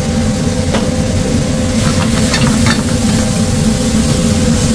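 Steak and vegetables sizzling in a stainless steel sauté pan on a commercial gas range, with a steady low roar underneath. Sharp ticks and short scrapes of the pan being tossed come in over the second half.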